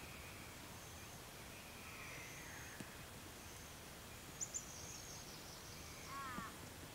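Faint bush ambience with distant birds calling: thin high whistles now and then, and a quick run of short chirps near the end.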